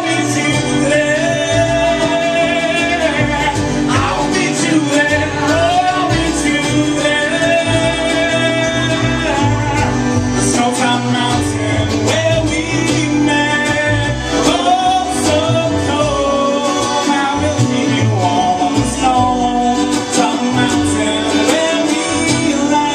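A folk band of accordion, banjo, mandolin, cello and acoustic guitar playing a song live, with singing over it.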